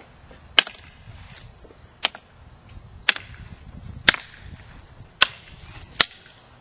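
Escrima sticks clacking together in a Heaven Six partner drill: six sharp stick-on-stick strikes about a second apart, some landing as a quick double click.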